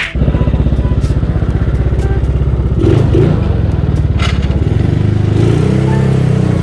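Yamaha Mio scooter's single-cylinder four-stroke engine idling steadily with an even pulse, just after a hard start, with a few light clicks and knocks about three and four seconds in. The scooter has been neglected and, by the owner's account, no longer runs well.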